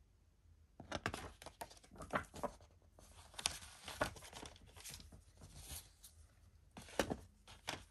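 Packaging being handled, crinkling and tearing in irregular rustling bursts that start about a second in, the loudest near the end.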